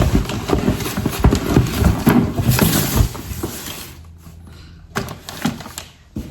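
Household items being unpacked and handled: a quick run of knocks and clatter for about three seconds, then a few single clicks and knocks.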